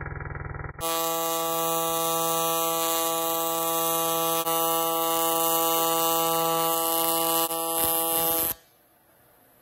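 AC TIG welding arc on aluminum, a steady buzz pitched at the machine's 165 Hz AC frequency. It follows a muffled hum, starts just under a second in, and cuts off abruptly near the end as the arc is broken.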